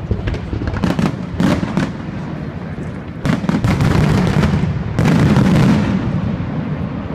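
Fireworks barrage: a rapid run of bursting shells and sharp cracking reports over a continuous rumble, with the loudest bursts about three seconds in and again about five seconds in.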